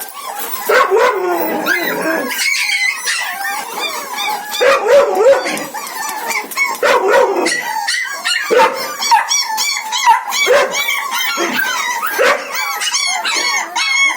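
Spitz puppies yapping and whining in high-pitched yips, several calls overlapping. The yips come quickly, a few a second, in the second half.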